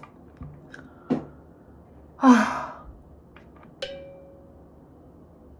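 A woman's breathy, sighing groan that falls in pitch, about two seconds in. A shorter falling vocal sound comes about a second in. Near the end there is a click and a faint held tone.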